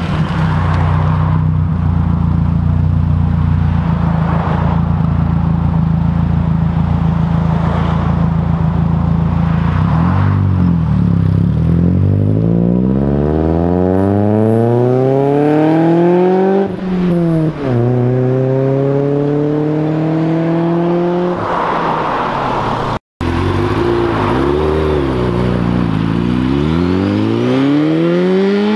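A modified Mk3 Volkswagen Golf's engine runs at steady low revs, then accelerates away with rising revs and a gear change just past halfway. After a brief dropout, a sport motorcycle's engine revs up and down, then rises as it accelerates away.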